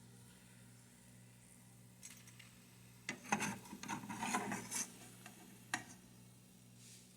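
Kitchenware clattering and scraping for about two seconds, with one more sharp click shortly after, over a faint steady low hum.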